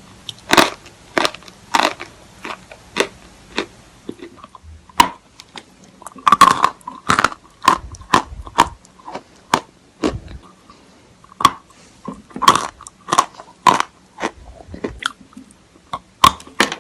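Chalk being bitten and chewed close to the microphone: a run of sharp, dry crunches, some in quick clusters, with short pauses between.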